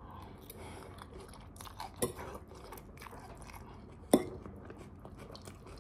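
A person chewing a mouthful of spaghetti, with faint soft mouth noises. A metal fork clinks sharply against the plate twice, about two seconds in and again about four seconds in.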